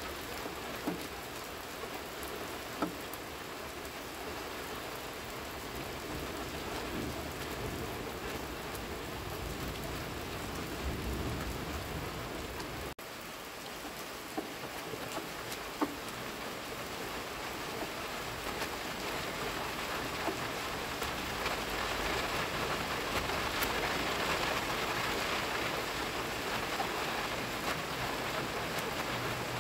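Steady rain falling, an even hiss with a few louder drips and taps, growing a little heavier later on.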